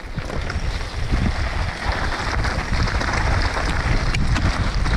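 Wind buffeting an action camera's microphone while riding downhill on a mountain bike, with the tyres crunching over loose gravel and a few sharp clicks and knocks from the bike.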